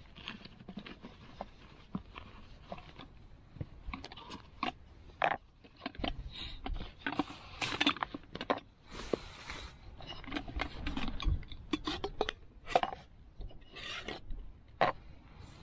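Camping cook kit being unpacked by hand: rustling of a fabric stuff sack, then scattered clinks and knocks of a metal cook pot, plastic stove legs and a metal canister being set down on a small plastic table, with scraping and rubbing in between.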